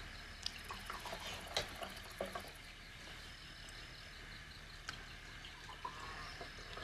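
Wine being poured from a glass bottle, with a few light clinks of cutlery and plates in the first couple of seconds.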